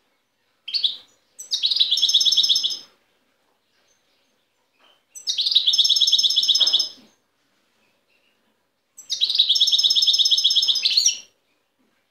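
European goldfinch singing: a short note, then three rapid trilled phrases of about one and a half to two seconds each, separated by pauses of a few seconds.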